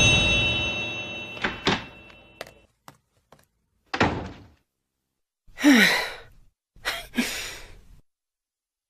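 A dramatic music sting fades away, then comes a scattering of short, soft thuds and brief breathy sounds, one of them a short vocal sound falling in pitch.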